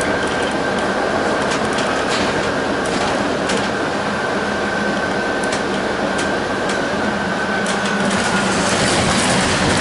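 Interior of a New Flyer XD60 articulated bus under way: steady running noise with a thin high whine and a scatter of clicks and rattles.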